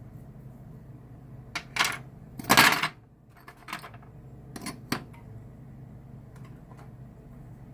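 Hard objects clinking and clattering as they are handled and set down: a handful of short knocks, with the loudest, longer clatter about two and a half seconds in.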